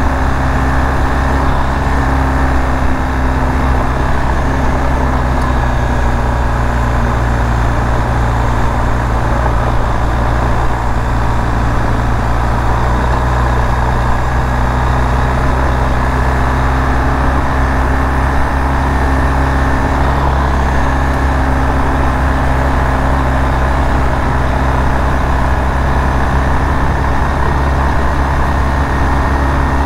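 Motorcycle engine running steadily while riding a dusty dirt road, heard from on the bike, with a constant rush of wind and road noise over it.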